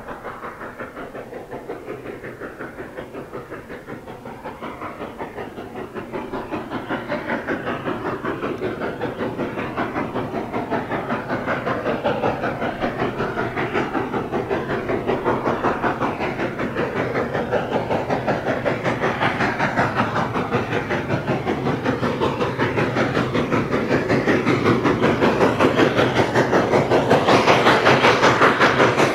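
A 1917 Baldwin 2-8-0 steam locomotive working along the line toward the listener, its exhaust chuffing in a quick, even beat. The sound grows steadily louder as it approaches.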